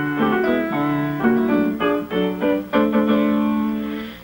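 Piano playing a short instrumental passage of single notes and chords, with no voices.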